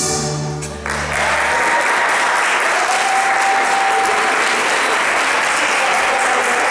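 The dance music ends on its final chord about a second in, then an audience applauds steadily, with a few high held whistles or calls over the clapping.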